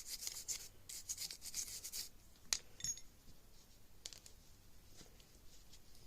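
Quick rubbing or scrubbing strokes on a small metal gun part during cleaning and disassembly. About two and a half seconds in comes a sharp click, then a brief metallic ping as a small part is handled. A few faint ticks follow.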